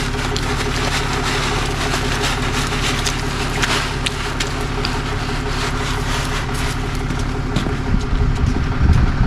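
A vehicle engine idles steadily under scattered sharp clicks and crunches. A low rumble grows louder about eight seconds in.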